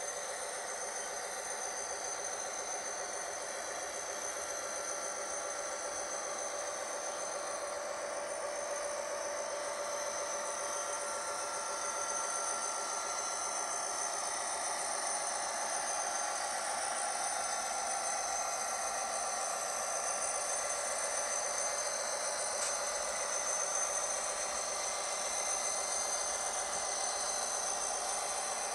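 Model train running on the layout track: a steady whir of wheels and motors with a thin high whine.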